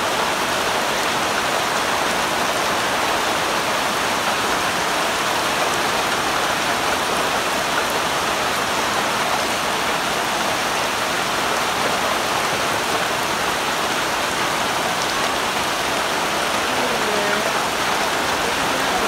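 Steady heavy rain falling on a sheet of shallow floodwater: a dense, even hiss of drops splashing on the water surface.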